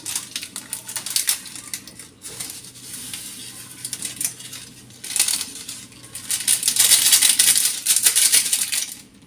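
Crinkling and crackling of a plastic seasoning sachet being handled and emptied, with the seasoning sprinkled by hand over the fish and vegetables in the pan. The crackling grows louder over the last few seconds.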